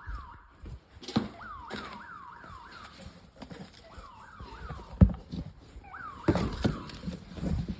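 A security alarm siren sounds at a distance in runs of quick falling whoops, about three a second, with short gaps between the runs. A few sharp knocks sound close to the microphone, the loudest about five seconds in.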